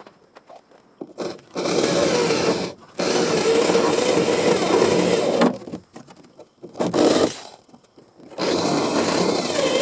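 Electric angle grinder working on sheet steel, run in bursts of a couple of seconds with short pauses between, plus one brief blip.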